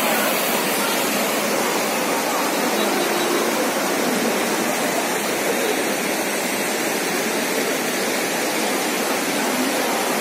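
Fast-flowing floodwater rushing along a flooded street, a steady, loud rushing noise.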